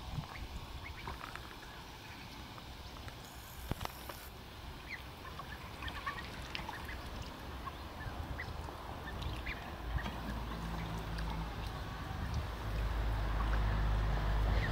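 Khaki Campbell ducklings giving short scattered calls while they dabble in shallow water. A low wind rumble on the microphone builds from about ten seconds in.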